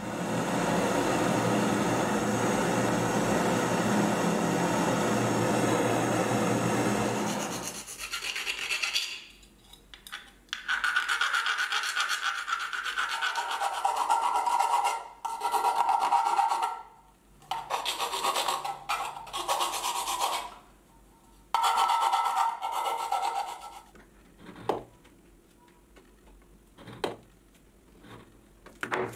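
A steady loud rushing noise that stops about eight seconds in. Then a hand file rasps on the edge of a brass cigarette case in a run of strokes, each a second or more long, and a few light clicks come near the end.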